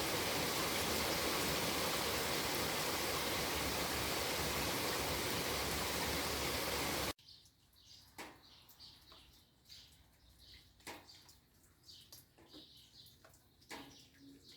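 Steady rain falling in a dense even hiss that cuts off abruptly about halfway through. After it, small birds chirp quietly, with a few sharp taps.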